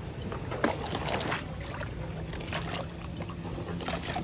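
Hippopotamus eating pumpkin in a pool: several short wet crunches and splashes over a steady wash of moving water.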